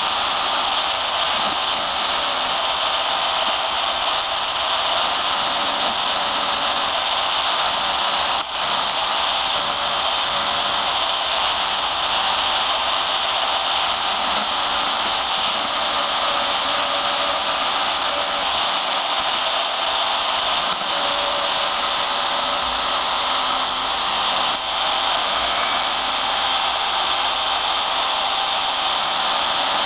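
Metal-cutting bandsaw running steadily, its blade cutting through the hardened steel of an old file, with a couple of brief dips in the noise.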